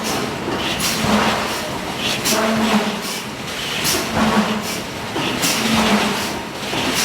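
Hydraulic forging hammer and forge machinery working in a steady rhythm: hissing bursts about once a second over a low hum that comes back every couple of seconds.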